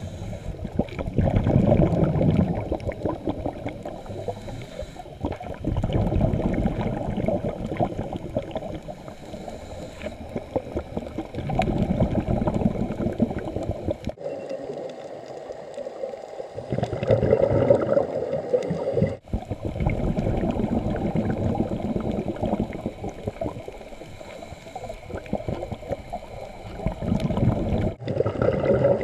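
Underwater bubbling from a scuba diver's exhaled breath through the regulator, gurgling in surges every few seconds. The sound breaks off abruptly a couple of times.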